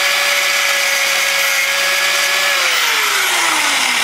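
Small handheld angle grinder running, grinding the heads off the rivets of a motorcycle chain's master link. About two and a half seconds in it is switched off, and its pitch falls steadily as the disc spins down.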